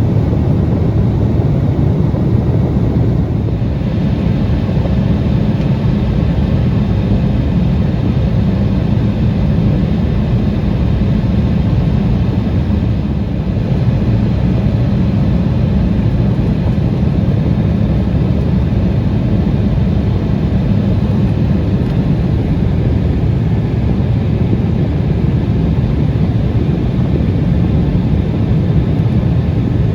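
Steady cabin rumble of an Embraer 175 airliner in flight: the hum of its jet engines and the rush of air over the fuselage, unchanging throughout, as the aircraft descends toward landing.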